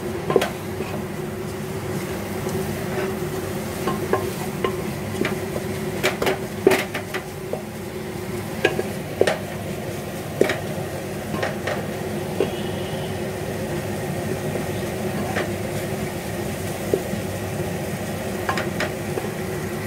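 Wooden spatula stirring and scraping spiced onion-tomato masala as it fries in a pressure cooker, with irregular knocks against the pot over a steady sizzle. A steady low hum runs underneath.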